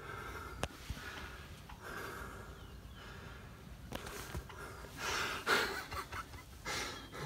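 Excited heavy breathing and gasps from a hunter in a ground blind, with a couple of faint sharp clicks.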